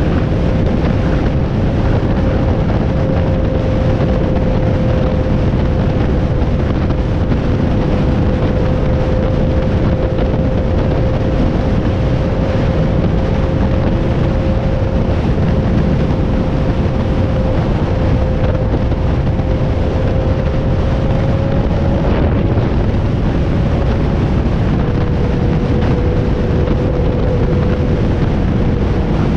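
A vehicle's engine running at a steady pitch under loud, constant wind rush on the microphone, the engine note dropping slightly a little over twenty seconds in.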